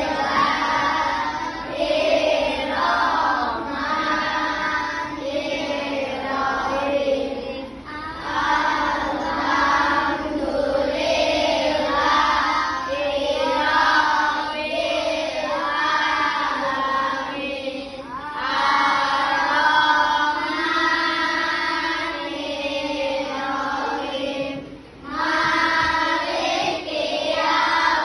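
A group of children singing a song together in unison, in phrases of a second or two with brief breaths between them.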